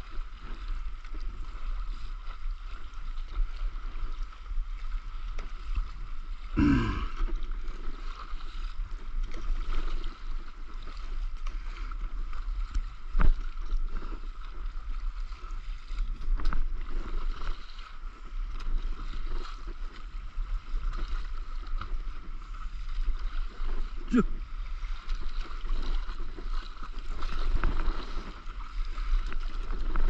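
Water sloshing and splashing against a stand-up paddleboard and paddle as it is paddled through a swell, with a steady low rumble of wind on the microphone.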